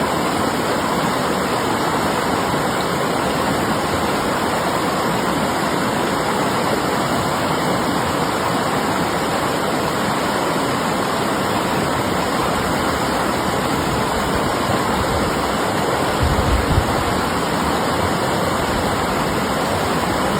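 Steady rush of river water flowing. About sixteen seconds in comes a brief low thump.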